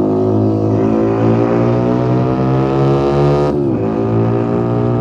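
Keeway SCR 250 motorcycle with a Rez Speed aftermarket exhaust pulling hard under throttle, its engine note rising steadily. About three and a half seconds in the pitch drops sharply, then holds steady.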